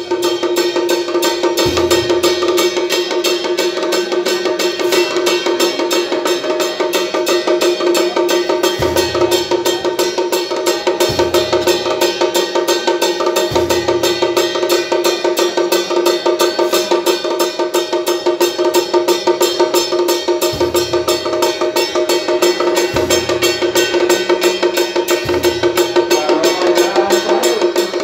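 Traditional Taiwanese temple-procession percussion: fast, dense clattering strikes over a steady ringing tone, with a deep beat every two to seven seconds.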